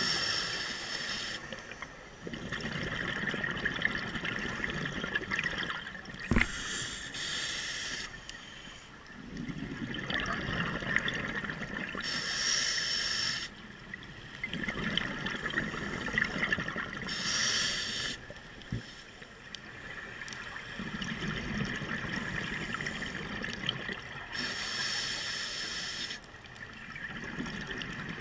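Scuba diver breathing through an open-circuit regulator underwater: a short hissing inhale every five or six seconds, each followed by a longer bubbling burble of exhaled air. A sharp knock comes about six seconds in, and a fainter one later.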